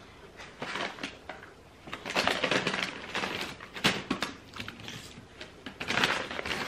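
Paper crinkling and rustling as a paper napkin is handled and a brown paper takeout bag is rummaged through. It comes in bursts, a long one about two seconds in and another near the end, with softer crackles before them.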